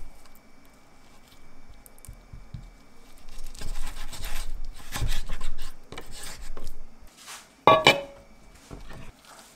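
A kitchen knife slicing through raw chicken thigh, the blade rasping against a wooden cutting board in a run of strokes. Near the end comes one sharp metallic clank with a brief ring as a stainless steel bowl is set down.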